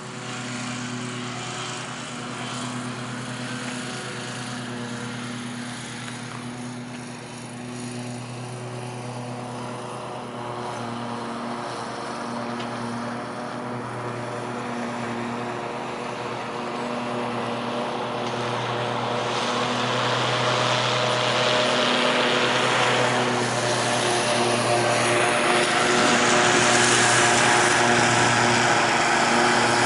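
Radio-controlled T-28 model airplane's engine and propeller running steadily, a pitched hum with a gentle pulsing beat. It grows louder and fuller in the last third.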